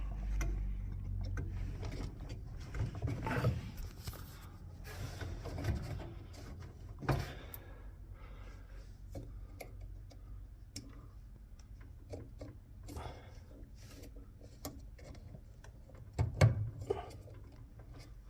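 Hand work on a gas furnace's pressure switch and its fittings: scattered small clicks, rattles and rubbing, with a louder pair of knocks about sixteen seconds in.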